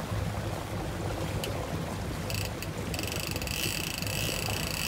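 Fishing reel's clicker ratcheting rapidly as line pays out while the outrigger halyard is hauled, in two spells: a short one just after halfway and a longer one from about three seconds in, over a low steady hum.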